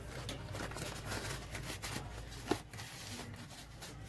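Rustling and light handling noises with a sharp click about two and a half seconds in, over a low steady hum.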